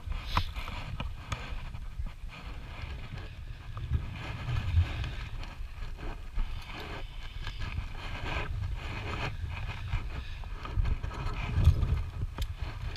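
A climber moving along a ropes-course element: irregular knocks and clicks of harness clips, steel cable and footsteps on the wooden crossing, over a low rumble on the body-worn camera's microphone. The loudest knocks come about five seconds in and near the end.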